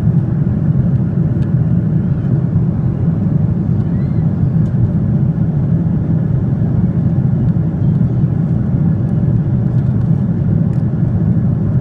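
Airliner cabin noise: a steady low drone of engines and airflow, with no change in level.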